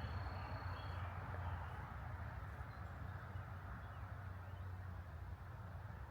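Outdoor park ambience: a steady low rumble under a soft even hiss, with a thin high trill that stops about a second in and a few faint bird chirps near the start.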